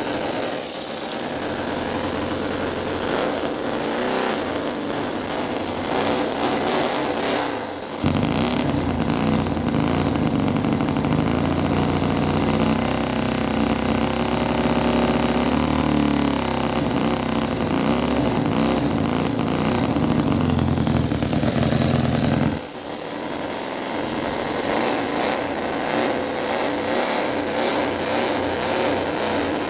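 CISON FG-VT9 9cc V-twin model petrol engine running steadily. From about a quarter of the way in to about three quarters, it suddenly sounds louder and deeper, and its pitch wavers a little in the middle of that stretch.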